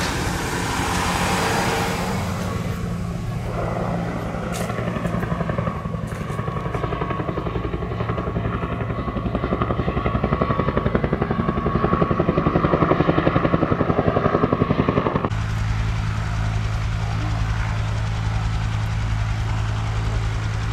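Bell UH-1 'Huey' helicopter flying overhead, its two-blade main rotor making a fast, even blade beat that grows louder toward the middle. The beat cuts off abruptly about three-quarters of the way through, and a steady low engine hum takes over.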